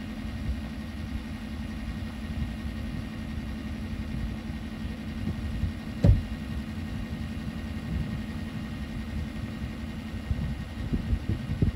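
Plow truck's engine running steadily as it pushes snow off the road, with a sharp thump about six seconds in.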